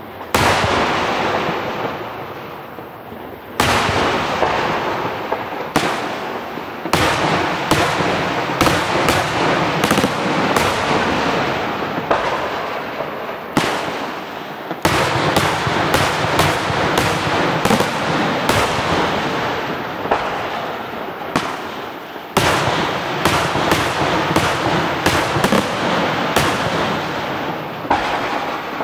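Aerial firework shells bursting in quick succession: many sharp bangs over a continuous crackle and rumble. The bangs come thick and fast from a few seconds in, with a couple of brief lulls.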